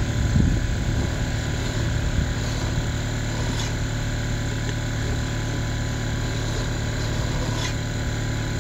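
A steady mechanical hum, like a motor running, with a couple of faint short scrapes of a hand file drawn along the rails of a chainsaw bar clamped in a vise.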